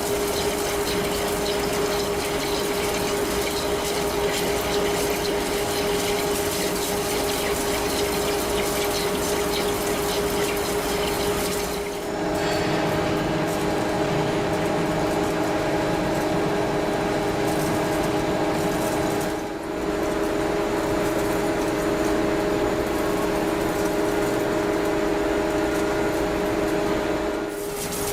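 Metal-cutting machine at work, with coolant pouring and splashing over the cut in a steady hiss under a steady machine hum. The hum's pitch changes abruptly about twelve seconds in, and the sound briefly dips again near twenty seconds.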